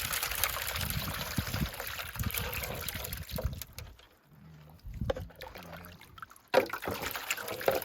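Water trickling and splashing in two stretches: a long one at the start and a second that begins suddenly about six and a half seconds in, with a few knocks between them.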